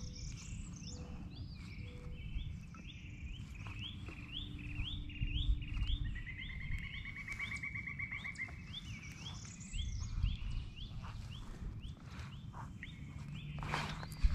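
Songbirds singing: one repeats a short rising note about twice a second, and a buzzy trill runs for a couple of seconds in the middle, over a low rumble. There is a sharp knock near the end.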